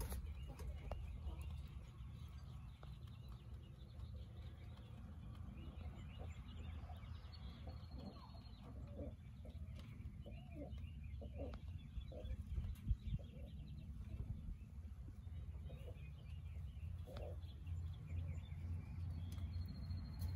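Faint chickens clucking and small birds chirping, over a low steady rumble.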